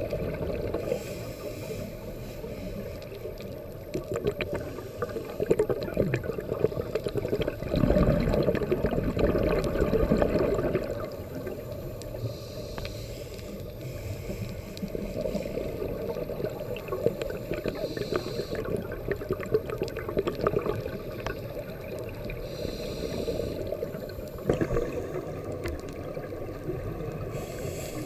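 Underwater sound heard through a GoPro's waterproof housing: a muffled, steady rush of water with faint crackling clicks. Over it comes a scuba diver's regulator breathing, with a brief hiss of breath about every five seconds and a louder rush of exhaled bubbles about eight to eleven seconds in.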